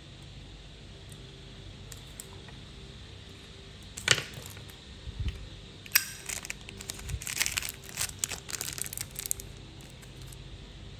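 Metal clicks and scraping from a Zippo lighter being handled: one sharp click about four seconds in, then a run of clicks and scratchy rasping for about three seconds.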